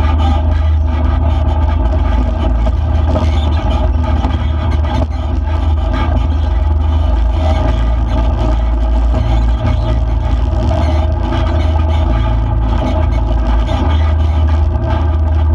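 On-board sound of an off-road vehicle driving a dirt road: its engine and drivetrain running at a steady pace, with a constant low rumble.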